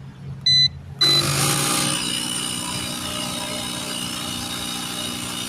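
A short electronic beep, then about a second in a small portable air compressor starts and runs steadily, inflating a freshly patched car tire.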